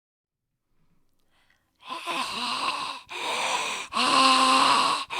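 A person making loud, breathy vocal sounds, like sighs and groans, in a run of bursts about a second long that starts about two seconds in after silence.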